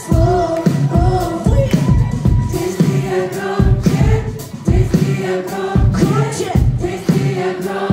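Live band playing a pop song, a woman singing lead over a steady drum beat, recorded from among the concert audience.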